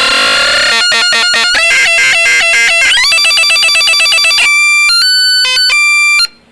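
Boombox Synth 2 synthesizer playing buzzy electronic tones: a noisy sweep at first, then rapid chip-like stepping notes, a quick upward glide into a held tone, and a few jumps between pitches before it cuts off suddenly near the end.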